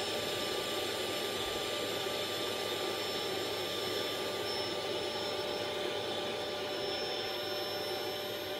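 Large vacuum cleaner running steadily, sucking up dog hair: an even rush of air with a steady motor whine.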